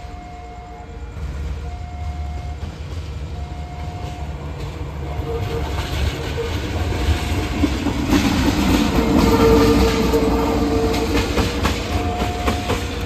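A train approaching and passing, its running noise and wheel clatter growing louder, with one long blast of the locomotive horn about nine seconds in. Underneath, a short warning beep repeats about every second and a half.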